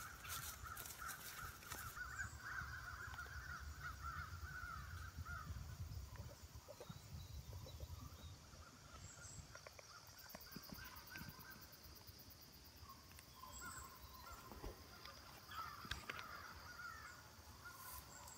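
Distant pack of foxhounds baying together in full cry. The chorus fades out about five seconds in and comes back faintly near the end.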